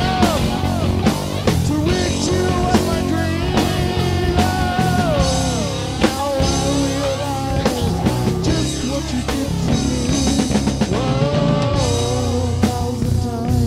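Rock music with electric guitar and a steady drum beat, a melody line sliding in pitch over it.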